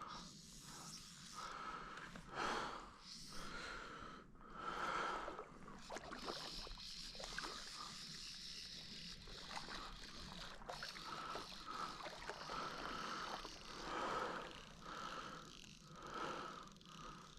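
A person breathing heavily and unevenly close to the microphone, a series of loud breaths about once a second.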